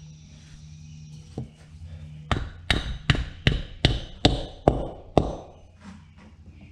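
About eight sharp hammer strikes, roughly two and a half a second, tapping a new bearing into a garden tractor wheel hub, after one lighter knock.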